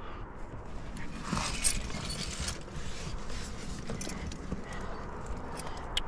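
Scuffing and rustling of a climber's hands, clothing and body jamming against granite inside a crack, with a low rumble of handling on the body-mounted camera. The scuffs are loudest between about one and two and a half seconds in, and a sharp click comes near the end, likely the climbing rack on the harness.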